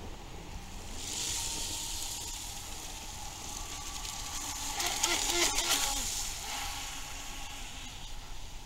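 Radio-controlled model jet ski running fast across a lake at a distance: a steady hiss of its jet wash and spray with a faint high whine. It swells louder about five seconds in.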